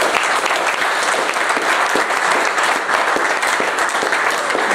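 Guests applauding: a roomful of people clapping steadily.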